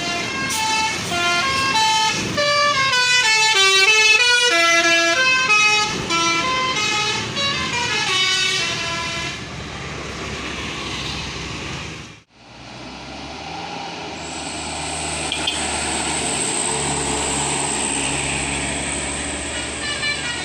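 Bus 'telolet' multi-tone air horn playing a tune for about nine seconds, several horn notes sounding together and stepping up and down in pitch. After a brief break the bus runs on with a steady high-pitched whistle over it.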